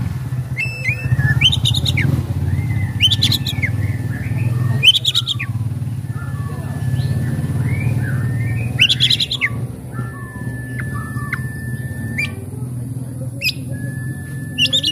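Oriental magpie-robin singing: long, level whistled notes held for a second or two, broken by loud, harsh rasping calls, over a steady low hum.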